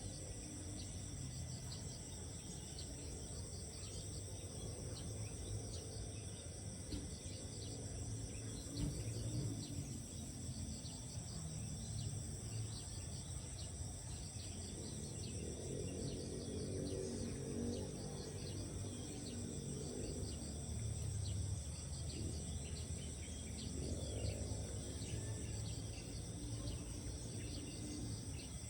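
Steady chorus of crickets and other insects chirring, with occasional bird calls, over a low, uneven rumble that swells in the second half.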